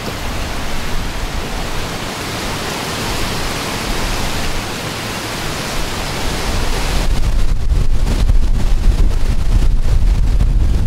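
Strong gusty wind over open water, a steady rushing hiss. About seven seconds in it turns into heavy wind buffeting on the microphone, a low rumble.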